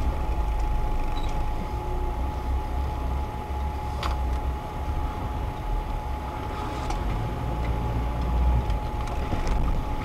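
Off-road vehicle's engine running low and slow as it drives over a rutted, muddy forest track, heard from inside the cab as a steady low rumble, with a sharp knock from the body about four seconds in and a thin steady whine underneath.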